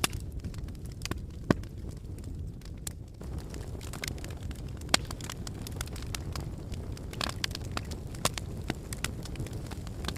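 Fire burning in a fireplace: a steady low rumble of flames with scattered sharp crackles and pops. The two loudest pops come about a second and a half in and about halfway through.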